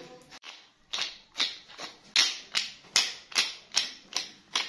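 Wooden pepper mill grinding black peppercorns: short rasping ratchet strokes, one with each twist of the mill, repeating about every half second from about a second in.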